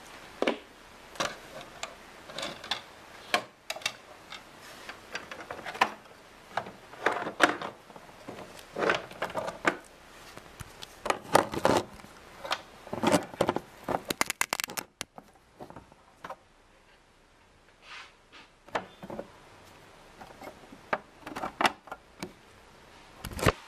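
Irregular clicks, taps and rustles of plastic toy figures and a toy stable set being handled close to the microphone, thick for the first half and sparse after, with a quick run of clicks just before it quietens. A muffled rumble of handling on the microphone starts right at the end.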